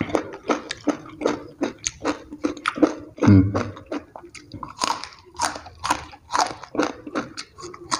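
A person chewing raw round green eggplant with sambal, close to the microphone: rapid crunchy chews about three a second, with one heavier, deeper thump about three seconds in.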